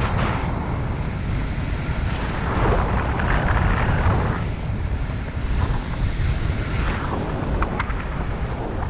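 Airflow of a paraglider in flight buffeting the camera's microphone: a steady low wind rumble with slow swells of rushing hiss.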